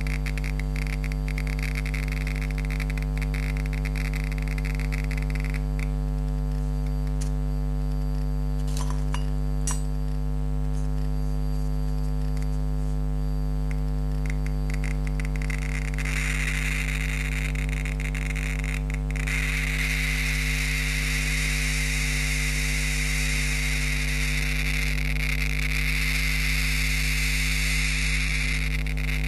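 Homemade Geiger counter clicking as it detects radiation from a sample marked radioactive. The clicks come thick and fast into a crackling buzz at first, thin out to scattered clicks for about ten seconds, then crowd back into a dense crackle for the second half. A steady electrical hum runs underneath.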